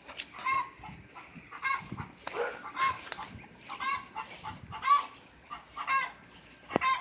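Hens clucking, with a loud pitched call about once a second. There is a single sharp knock near the end.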